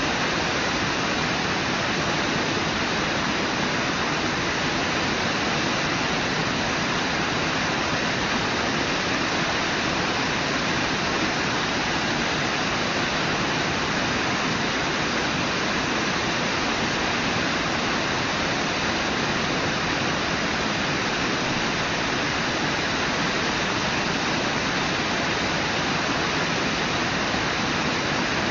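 Water pouring over Brooks Falls, a waterfall on the Brooks River, rushing steadily with no change.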